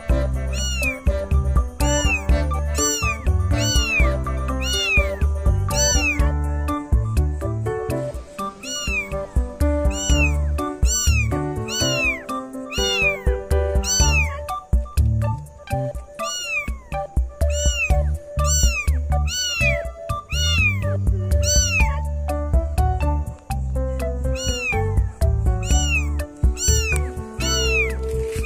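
Cat meowing over and over, short high-pitched meows repeating at an even pace of about two a second, over background music with a steady bass beat.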